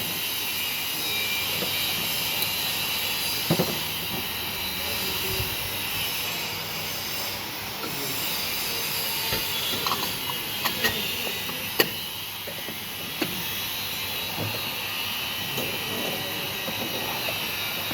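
Metal pump parts and hand tools being handled: a few sharp clicks and knocks, the loudest about twelve seconds in, over a steady background hiss.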